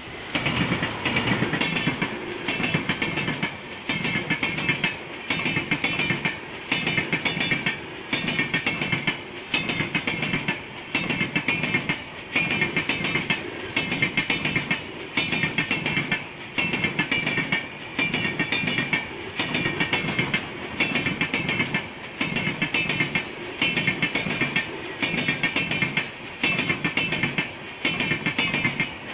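Passenger train of LHB coaches passing close by at speed: a loud, steady rolling roar with a rhythmic clatter of wheels over the rail joints. The clatter comes in regular groups about every one and a half to two seconds, as each coach's bogies go by.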